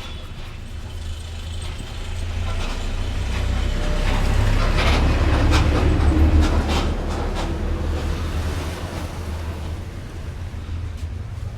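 A motor vehicle passing by: a low engine and road rumble swells to a peak about halfway through, then fades away. A few sharp clicks are heard around the loudest part.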